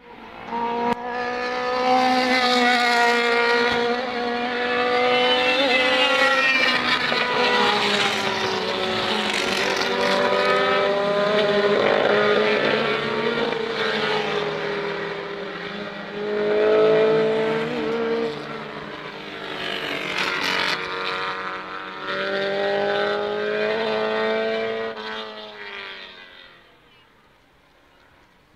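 Race car engines at full throttle around the circuit, the engine note rising and then dropping again several times as the drivers change gear. The sound peaks about 17 seconds in and fades away near the end.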